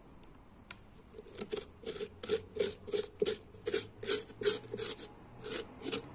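A metal spoon scraping seeds and pulp from the inside of a halved pumpkin, in repeated rasping strokes about three a second, starting about a second in.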